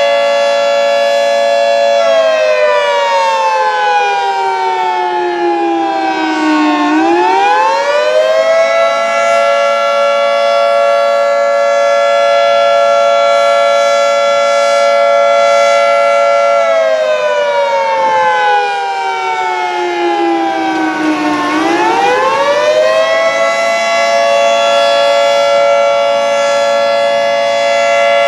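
Fire station's general fire siren sounding: a loud, steady held tone that twice slides slowly down in pitch over several seconds, then climbs quickly back up and holds again. It is the general fire alarm signal, sounded in place of the tornado warning.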